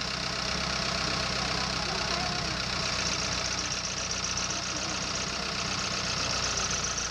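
A tour boat's engine running steadily, a continuous mechanical drone.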